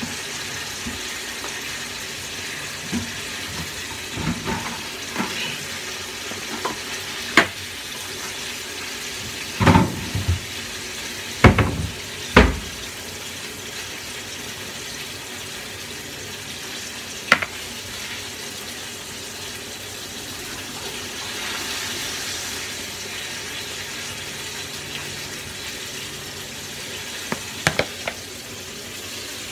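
Water running steadily from a kitchen tap, with scattered knocks and clatters of bowls and utensils being handled. The loudest knocks come in a cluster about ten to twelve seconds in.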